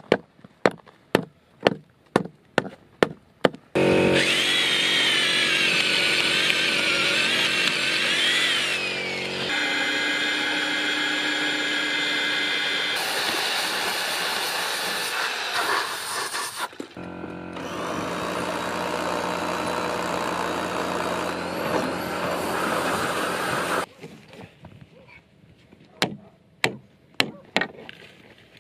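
Hammer blows on timber, about two a second, for the first few seconds. Then an electric drill runs for about twenty seconds as it bores down through a timber beam, its pitch wavering, with a few brief pauses. Near the end come a few more hammer blows as a steel pin is driven into the beam.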